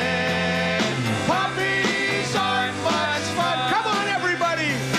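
Live rock band music: electric guitars and bass over a drum beat, with a lead line sliding up and down in pitch.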